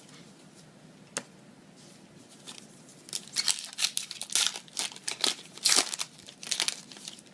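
Foil Yu-Gi-Oh booster pack wrapper being torn open and crinkled: a quick run of crackling rips and crumples from about three seconds in, after a single light click about a second in.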